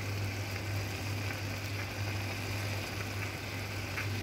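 Creamy chicken and spinach filling simmering in a pan, a steady hiss, over a constant low hum.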